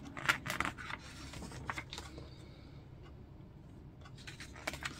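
Glossy paper pages of a large paperback book rustling as a page is turned by hand: a few short crackles in the first two seconds and again near the end.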